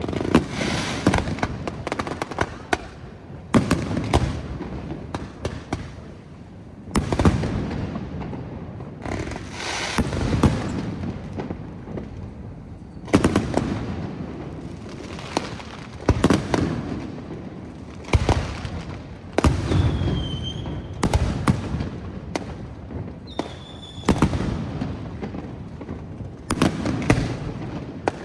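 Aerial fireworks display: shells bursting one after another, sharp bangs every second or two, each trailing off in a rolling echo. Two short whistles sound about two-thirds of the way through.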